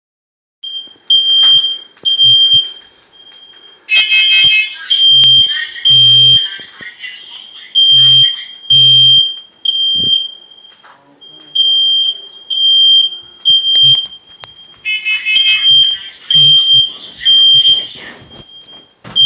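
Newly installed smoke alarms going off, sounding a shrill, high-pitched beep over and over in short pulses with an uneven rhythm.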